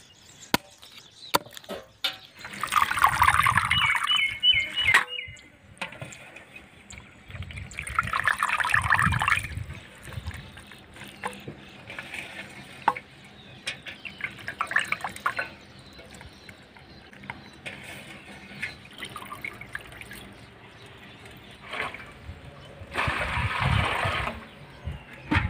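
A few sharp chops of a billhook blade through goat head into a wooden log, then water splashing and pouring in three bursts of two to three seconds each, with quieter trickling and small knocks between.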